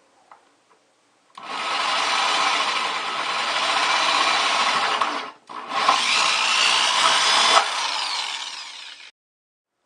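Power drill cutting through a plastic bucket: about four seconds of drilling, a brief stop, then about three and a half seconds more that end abruptly.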